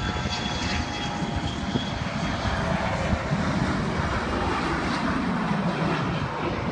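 Jet airliner taking off, its engines at takeoff thrust: a steady distant rumble, with a thin high whine over it that fades about two seconds in.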